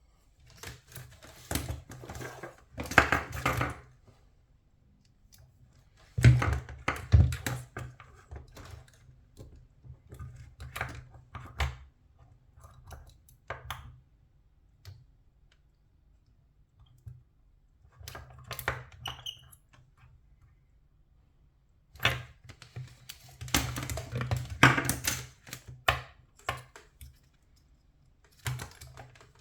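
Irregular bursts of clicking, tapping and clattering from small plastic and metal parts and hand tools being handled, with short quiet pauses between the bursts.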